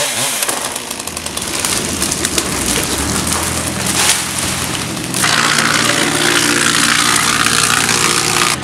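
An engine running steadily under a loud wash of wood crunching and splintering, from tree cutting. It grows louder and more even about five seconds in.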